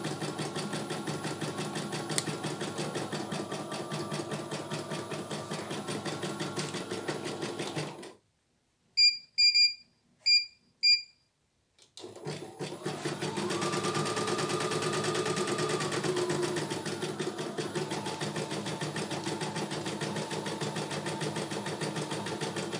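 CNY E900 computerised embroidery machine stitching at a rapid, steady needle rhythm. About eight seconds in it stops, beeps several times in short high tones, and then starts stitching again.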